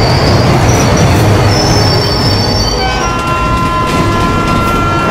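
Steam locomotive sound effect: a loud, steady rumble of the train running, with high squeals over it for the first few seconds. About three seconds in, several steady high tones come in together and hold.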